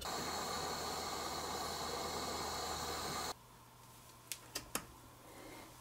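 A steady hiss that cuts off suddenly after about three seconds. About a second later come three light clicks close together as a tinned copper wire end is worked into a small brass wire splicer.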